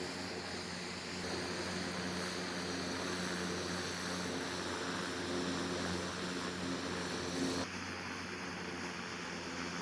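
MQ-9 Reaper's turboprop engine and propeller running with a steady drone and a low, even hum. The sound changes abruptly about a second in and again near the end.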